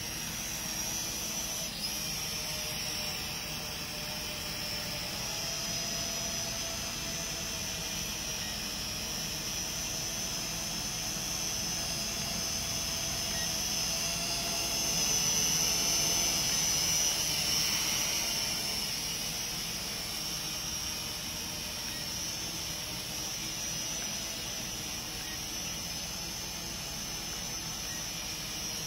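Kolibri Hellfire quadcopter drone's rotors running in flight: a steady high-pitched whine that grows louder about fifteen seconds in as the drone comes close, then eases back.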